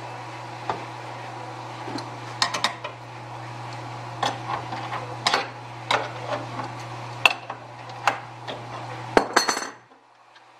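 Sharp metallic clinks and knocks from an adjustable wrench working the clamp-bar bolts of a sheet-metal bending brake, a dozen or so separate strikes, over a steady low hum that stops near the end.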